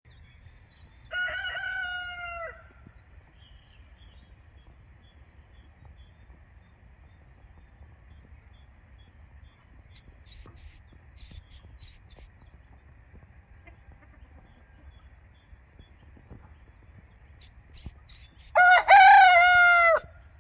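Silver duckwing Leghorn rooster crowing, loudest near the end, after a shorter, quieter crow about a second in. Faint hen clucking comes in between.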